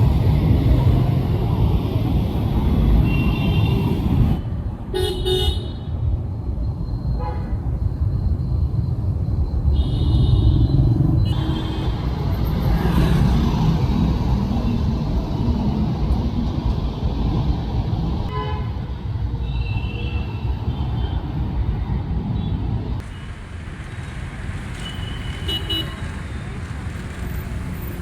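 Busy city street traffic: engines running in a steady rumble, with vehicle horns tooting several times in short honks.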